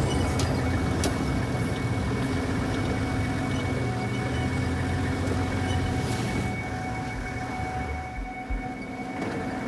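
A vehicle engine running with a steady low rumble that dies down about seven seconds in, under a thin steady high tone.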